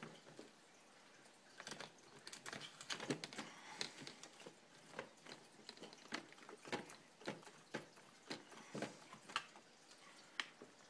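Small irregular clicks and scrapes of a hand driver working a small screw out of an RC car's chassis, with a few louder ticks scattered throughout.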